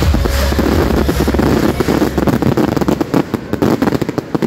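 Fireworks display's closing barrage: a dense, rapid run of shell bursts and crackling, with a low rumble at first, thinning near the end and then stopping suddenly.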